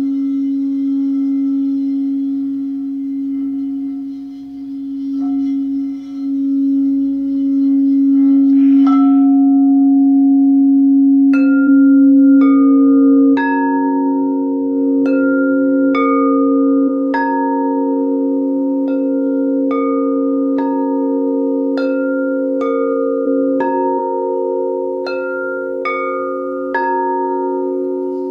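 Quartz singing bowls: one bowl holds a steady low hum throughout while, from about a third of the way in, other bowls are struck about once a second in a repeating sequence of a few notes, each ringing on over the hum.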